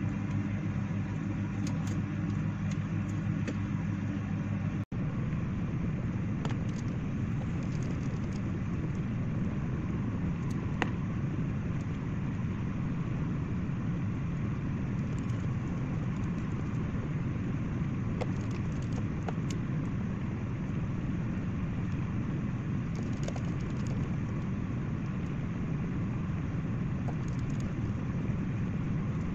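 A steady low rumble, with a low hum in the first five seconds that ends at a brief drop-out. Faint small clicks of a precision screwdriver working screws on a phone frame come through here and there.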